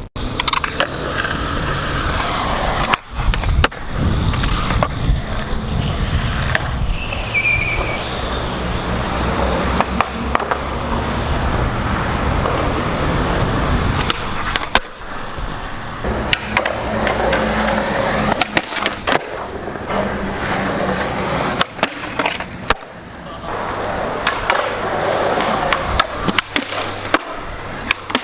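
Skateboard rolling over pavement, its wheels giving a steady low rumble, broken by repeated sharp clacks and pops of the board's tail and deck from tricks and landings.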